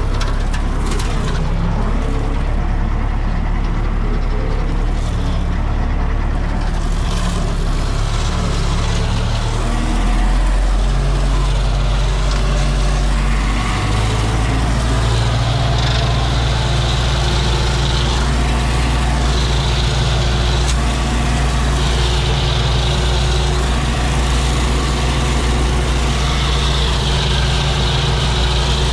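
MTZ-82 Belarus tractor's four-cylinder diesel engine running steadily, heard from inside the cab. Its note shifts about ten seconds in, and in the second half a high hiss comes and goes over it.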